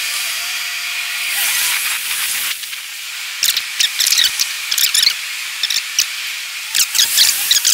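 Street sound from a sidewalk walk sped up twelvefold, so passing traffic becomes a steady high hiss. About two and a half seconds in the hiss drops away and many short, quick clicks take over.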